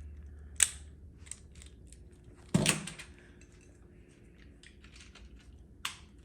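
Small plastic parts of a transformable toy robot clicking and knocking as they are handled and turned, with a sharp click about half a second in, a louder knock about two and a half seconds in and another click near the end, among lighter ticks.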